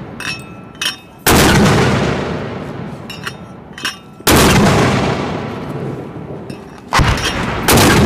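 Mortar firing in rapid succession: four loud reports, each with a long rolling echo, about three seconds apart, the last two less than a second apart. Short faint clicks come between the shots.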